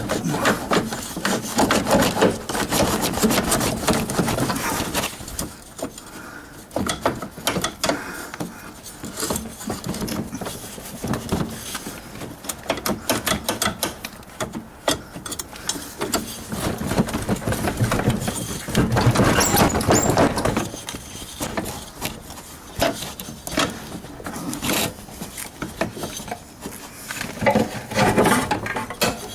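Hand tools working on a riding mower's engine pulley and belt: irregular metal clinks, knocks and rattles. They come thickest in the first few seconds and again about two-thirds of the way through.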